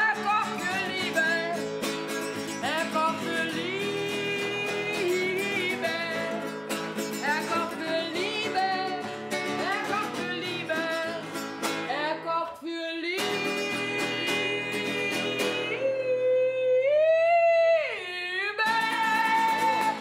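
A woman singing a song while accompanying herself on a nylon-string classical guitar, plucked and strummed. Near the end her voice climbs to a louder, wavering high note, then holds a note to the close.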